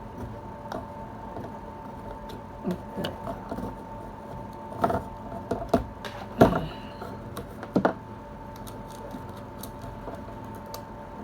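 Scattered light clicks and taps from handling electronic equipment and tools on a workbench, about half a dozen over several seconds, over a steady faint hum.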